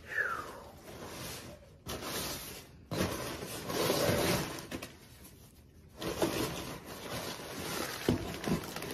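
Paper wrapping and packing fill rustling and crinkling as a plant is unwrapped by hand, in several spells of handling with short pauses between them.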